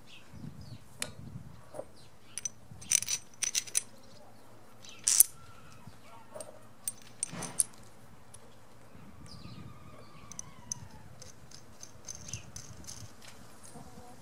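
Steel nuts, washers and bolts clinking against each other and the wooden bench as they are picked up and fitted through a steel-sleeved bearing roller: a scatter of sharp metallic clicks, the loudest about five seconds in.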